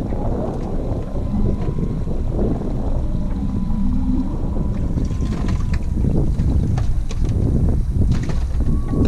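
Heavy wind noise buffeting the microphone aboard a trolling motorboat, a steady low rush that covers the boat's own sounds. A few light knocks come about five and eight seconds in.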